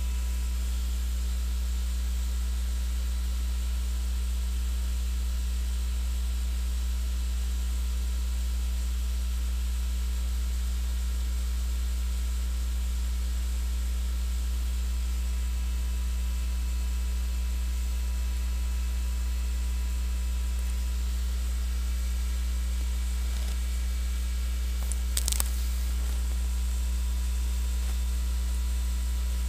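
Steady electrical mains hum with a faint hiss under it, unchanging throughout, and one brief click near the end.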